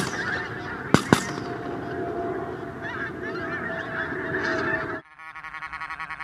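A large flock of pink-footed geese honking continuously overhead, with two shotgun shots in quick succession about a second in. After a cut at about five seconds, quieter, rapidly repeated goose calls.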